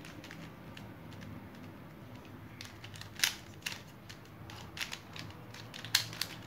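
Plastic clacks of a shape-shifting twisty puzzle cube's layers being turned by hand: a quiet first couple of seconds, then a scattered run of sharp clicks in the second half.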